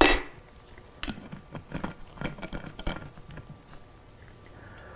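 Small dye bottles and a glass mixing jar handled and set down on a workbench: one sharp knock right at the start, then a run of light taps and clicks that thin out toward the end.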